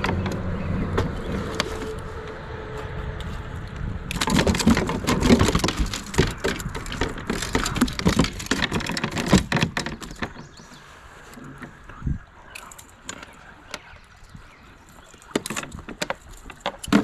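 Knocks, clicks and rattles on a plastic kayak's hull and fishing gear as a caught smallmouth bass is handled and unhooked in the footwell. The noise is densest from about four seconds in until about ten seconds in, with only scattered clicks after that. A steady rush is heard at first.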